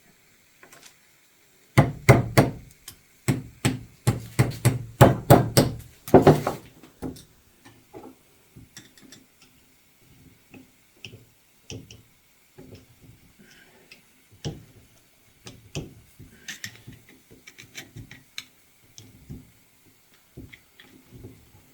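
Hand tools knocking and tapping on a metal part while old seals are worked out of an excavator component: a quick run of sharp, loud strikes about two seconds in, lasting some four seconds, then lighter scattered clicks and taps.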